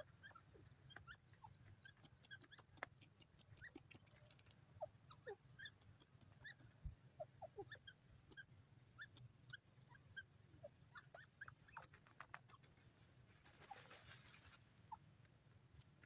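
Faint, scattered short bird chirps and soft clicks over a low steady hum, with a brief rustle about three seconds before the end.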